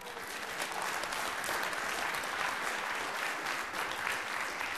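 Audience applauding. The clapping builds over the first second and then holds steady.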